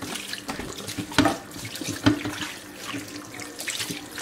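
Kitchen faucet running into a bowl while hands rub and swish chicken pieces in the water, with a couple of louder splashes about one and two seconds in.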